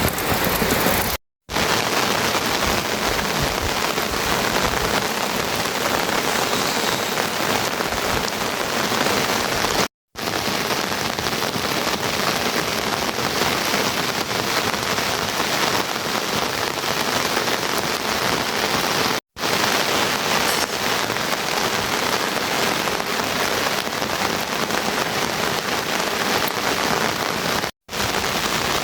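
Steady heavy rain, a dense even hiss, cut off by brief moments of dead silence four times, roughly every nine seconds.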